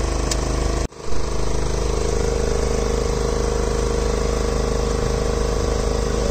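A boat's engine running steadily at an even idle-like speed. The sound cuts out for a moment about a second in, then returns.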